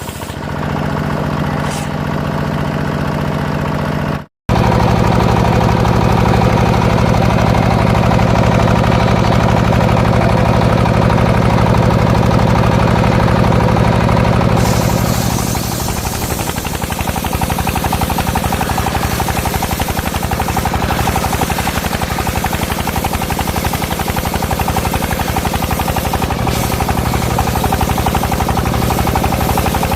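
Engine driving a homemade circular-saw rig, running steadily with a fast, even knocking beat. It cuts out for an instant about four seconds in. Around halfway the low hum weakens and a brighter hiss takes over.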